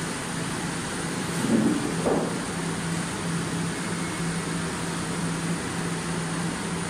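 An 800 L double planetary cooking mixer kettle running while it cooks chili sauce: a steady mechanical noise with a low hum that cuts in and out. A brief louder knock comes about two seconds in.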